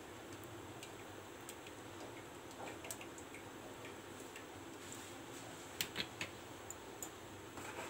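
Cooking oil being poured from a plastic bottle into a non-stick kadai, heard as a few light ticks and clicks over a faint steady hiss; the loudest group of clicks comes about six seconds in, as the bottle is taken away.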